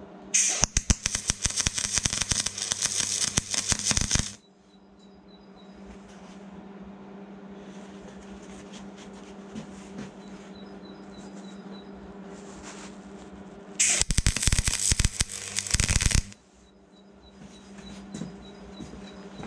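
Wire-feed MIG welder arc crackling while welding steel, in two welds: one of about four seconds near the start and one of about two seconds some fourteen seconds in. A steady hum runs beneath, heard plainly between the welds.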